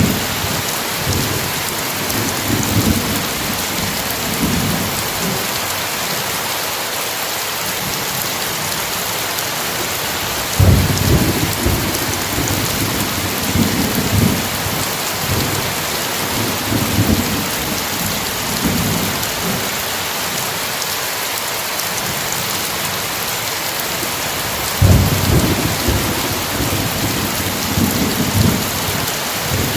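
Steady heavy rain with rolling thunder: low rumbles swell and fade beneath the hiss of the rain, with sharper claps about a third of the way in and again near the end.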